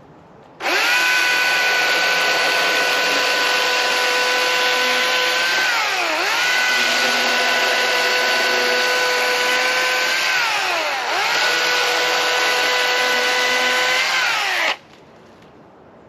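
Chainsaw running at high speed while cutting through a log. It starts abruptly, holds a steady pitch, sags twice under load and recovers, then cuts off suddenly.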